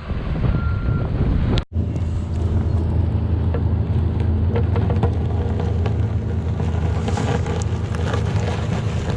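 Diesel engine of a Cat 304 mini excavator running steadily, with scattered clicks and knocks over its low hum. The sound cuts out abruptly for a moment about two seconds in, then the same engine carries on.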